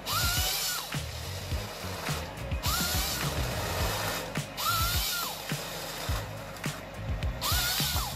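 Nisula 425C harvester head working a pine stem. Hissing feed and delimbing stretches alternate with short saw runs whose whine rises and falls, four times, every two to three seconds, over the low running of the tractor.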